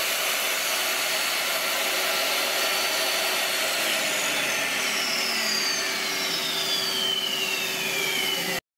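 DeWalt 745 table saw cutting MDF, with shop-vacuum dust collection running, a loud steady noise. From about halfway, a high whine slides steadily down in pitch as the saw spins down under the constant vacuum noise, and everything cuts off suddenly near the end.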